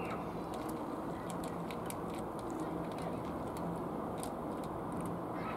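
Cat eating wet food from a plastic dish: small, irregular chewing and lapping clicks over a steady background rush.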